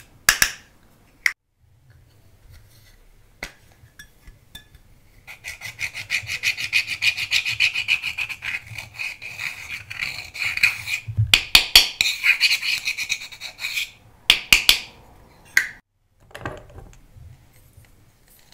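A small pointed tool scraping pressed makeup powder out of a compact pan in quick rasping strokes for several seconds through the middle, with a few sharp taps before and after.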